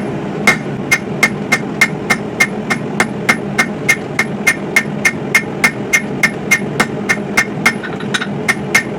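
A 3-pound blacksmith's hammer striking hot coil-spring steel on an anvil in a steady rhythm of about three ringing blows a second, drawing out the knife's handle. A steady rumble runs underneath.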